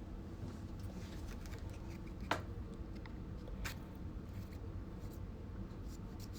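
Trading cards being handled: faint sliding and soft clicks, with two sharper ticks about two and three and a half seconds in, over a low room hum.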